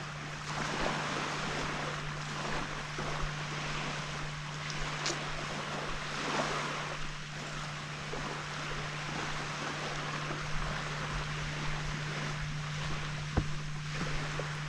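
Small waves washing onto a sandy beach, swelling and falling in slow surges, with wind on the microphone. A steady low hum runs underneath, and there is a single sharp click near the end.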